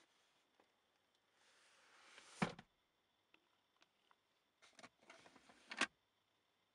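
Rear centre armrest and pop-out cup holder of a 2003 BMW 745Li being worked by hand. A rubbing, sliding swell ends in a solid clunk about two and a half seconds in. A few light clicks follow, then a second sliding swell ends in another clunk near the end as the cup holder tray latches open.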